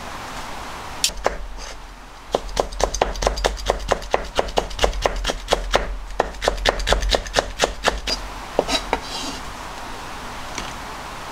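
Kitchen knife slicing a red bell pepper into thin strips on a cutting board: a quick, even run of knife taps, about five a second, from about two seconds in until near the end, with a few single taps either side.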